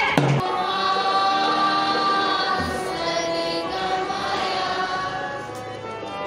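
A group of school students singing a Hindi prayer together, in long held notes, amplified through microphones.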